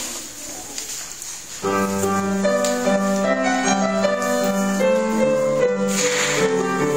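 Upright piano played solo, starting about a second and a half in: a melody over held bass notes.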